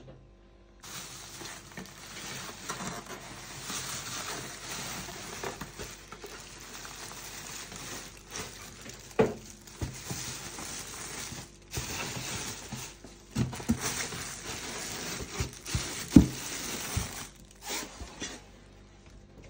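Clear plastic bag crinkling and rustling as hands handle it around an appliance, starting about a second in and dying down near the end. A few sharp knocks stand out, the loudest about halfway through and again later on.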